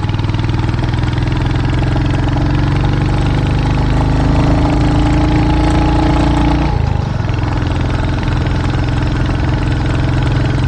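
Royal Enfield 350 single-cylinder motorcycle engine pulling on a rough uphill trail. Its pitch rises slowly for several seconds, drops abruptly about seven seconds in, and then runs steadily again.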